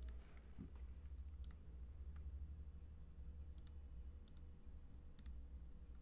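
Faint computer mouse clicks, several of them in quick pairs a second or so apart, over a low steady hum.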